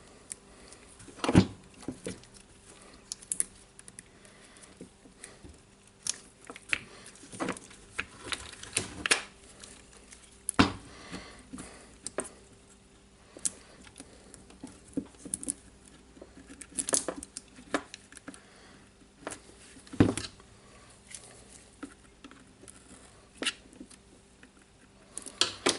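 Parts of a cordless rotary hammer's motor and motor housing being handled and fitted together by hand: scattered light clicks and knocks. A few sharper knocks come about a second and a half in, near the middle, and around twenty seconds in.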